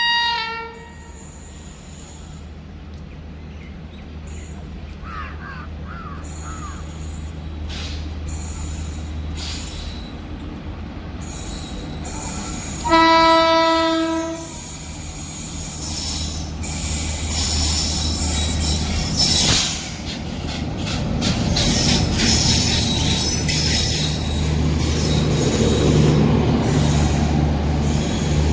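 Train horn: the tail of one blast right at the start, then one long blast about 13 seconds in. From about 16 seconds the rumble of the approaching train builds as it passes, with wheels squealing on the rails.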